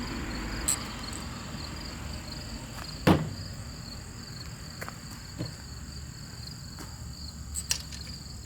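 Crickets chirring steadily in the background, with a few light clicks and one sharper knock about three seconds in.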